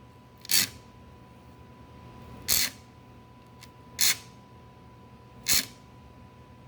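A hand file cutting new teeth into a dovetail saw's steel plate: four short rasping strokes, one every second and a half to two seconds.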